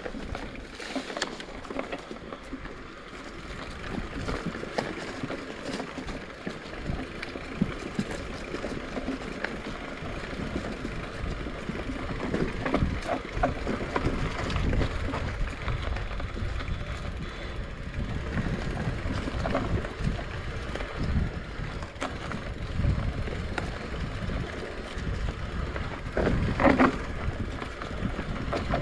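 Specialized Turbo Levo e-mountain bike rolling down a dirt forest trail: knobby tyres crunching over dirt, leaves and twigs, with the frame and parts rattling and knocking over roots and bumps. The rumble gets rougher and louder about a third of the way in, with a harder clatter a couple of seconds before the end.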